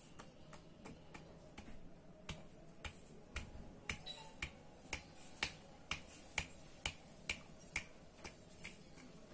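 Sharp clicks, about two a second and getting louder after the first couple of seconds, as a hand strikes the new connecting rod on a rebuilt Yamaha Mio Soul GT 125 crankshaft to check the big end for play.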